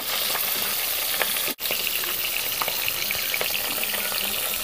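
Pieces of barari fish sizzling steadily as they shallow-fry in hot mustard oil in an aluminium kadhai, with small crackles throughout. The sound breaks off for an instant about one and a half seconds in.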